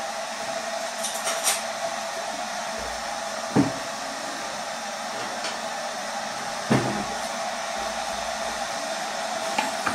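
Steady airy whir with a faint hum underneath, broken by a few short knocks, the two loudest about three and a half and seven seconds in.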